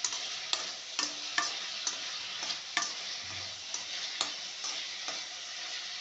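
Green chillies and tomatoes frying in hot oil in a pan: a steady sizzle with sharp, irregular crackles and pops roughly twice a second.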